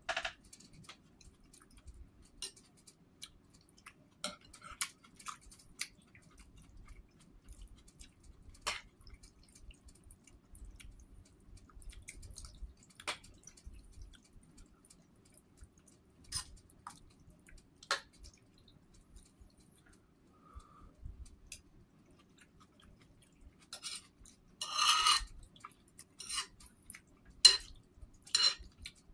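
Chewing a mouthful of soft rice porridge, with scattered clicks of a metal spoon on the bowl. Near the end comes a quick run of louder clinks and scrapes as the spoon stirs and scoops in the bowl.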